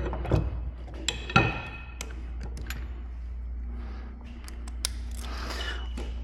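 Scattered metallic clinks and taps of tools and bolt hardware being handled, the loudest a ringing clink about a second and a half in, over a steady low hum.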